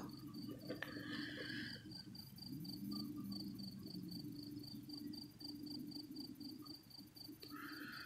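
Cricket chirping steadily in the night, a faint high-pitched pulsing of about five chirps a second.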